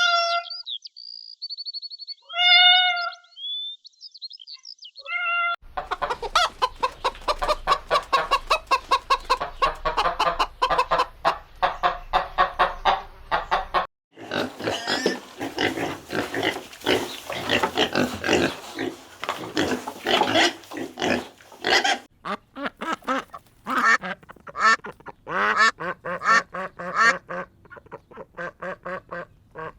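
Animal calls: a few separate pitched calls at first, then a dense chorus of rapid, overlapping calls from about five seconds in.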